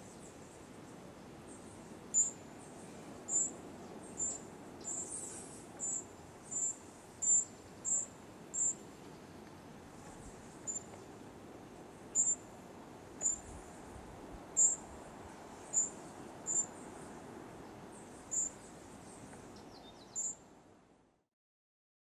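Fledgling tropical mockingbird begging to be fed: short, high-pitched call notes repeated about once a second, over a faint steady background hiss. The sound fades out near the end.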